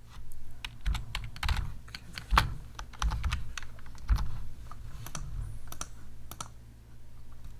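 Typing on a computer keyboard: an irregular run of key strikes with a couple of heavier taps, thinning out near the end.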